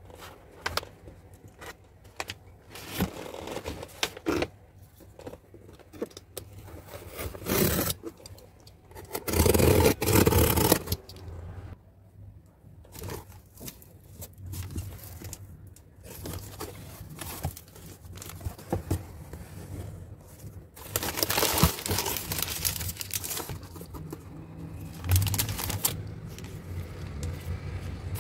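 A cardboard shipping box being opened by hand: packing tape torn off, cardboard flaps scraping, and tissue wrapping paper rustling, in irregular bursts. The loudest stretch is about ten seconds in, with more from about twenty-one seconds.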